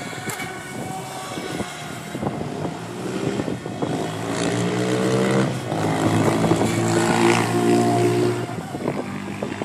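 Electric RC speedboat with a brushless motor (EMP 3656, 1200kv) running at speed, giving a pitched whine as its propeller churns the water. The whine gets louder from about halfway through as the boat comes close.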